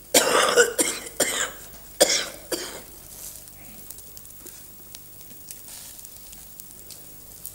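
A man coughing about four times in quick succession, brought on by smoke from a charcoal grill. Then faint sizzling and crackling of skewered meat on the grill.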